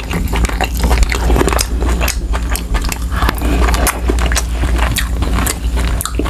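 Close-miked eating sounds: many irregular wet mouth clicks and lip smacks as a man sucks on and chews soft adobo-braised yellowfin tuna roe, over a steady low hum.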